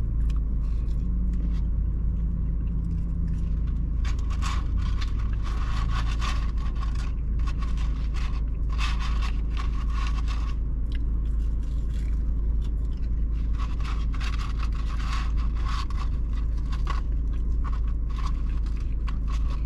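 Steady low rumble of an idling car with its air conditioning on, heard from inside the cabin. Over it come irregular bursts of paper rustling and chewing as fries are taken from a paper carton and eaten.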